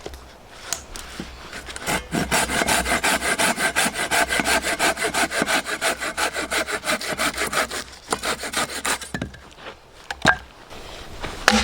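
A hand saw cutting through wood with quick, even back-and-forth strokes for about six seconds, starting about two seconds in, followed by a few knocks.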